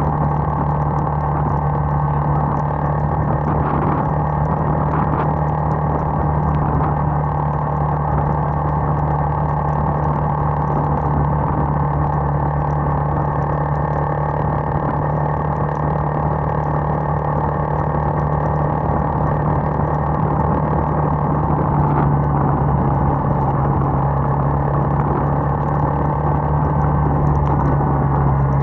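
Bajaj motorcycle engine running at a steady cruise, with a constant note that drops slightly about two-thirds of the way through, over a steady rush of wind and road noise.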